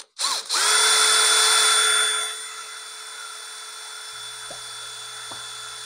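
Cordless drill running a homemade serrated tube cutter into the wing root of a fibreglass RC model to bore out a broken quarter-inch dowel wing pin. It whines steadily, loud with cutting noise for about two seconds, then drops to a quieter steady whir.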